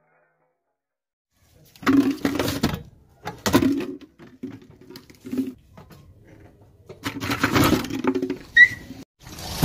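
Things cracking and crunching under a car tyre, in several short bursts with pauses between, starting about two seconds in. A short, sharp squeak comes near the end.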